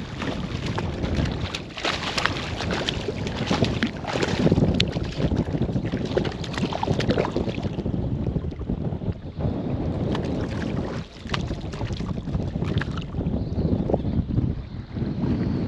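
Wind buffeting the microphone over water splashing as a hooked fish thrashes at the surface and is drawn in and netted. The splashing is heaviest in the first half and eases after about halfway.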